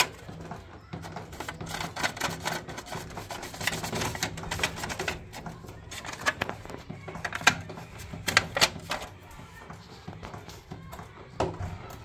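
Irregular plastic clicks, knocks and rattles as a washing machine's drain pump and its sump housing are gripped, twisted and handled, with a run of quick clicks in the middle.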